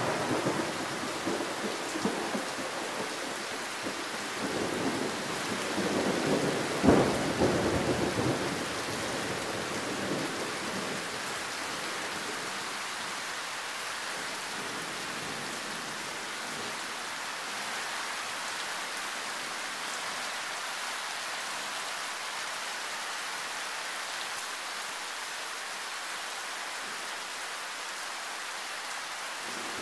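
Loud, heavy tropical rain pouring steadily, with thunder rumbling through the first ten seconds and a sharp thunderclap about seven seconds in. After that only the rain goes on.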